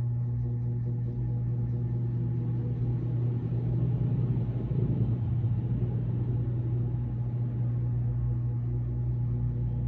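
A steady low hum, with a rougher low swell rising and fading around the middle.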